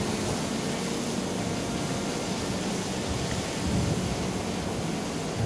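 Steady wind noise on the microphone, an even rushing hiss with no clear tone in it.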